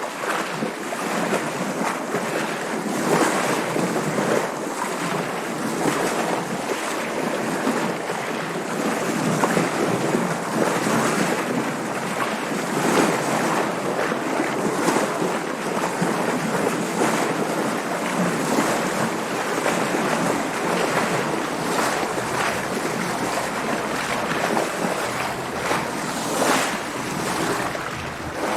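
Water splashing and rushing around a sailboat moving through waves: a steady wash of water with irregular louder splashes every second or two.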